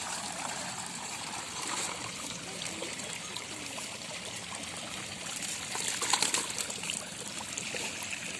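Shallow water trickling and flowing steadily, with a louder burst of splashing about six seconds in.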